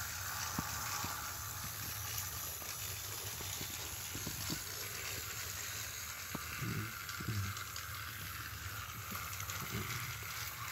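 Battery-powered toy engine running along plastic track: a steady whirring hiss with scattered light clicks.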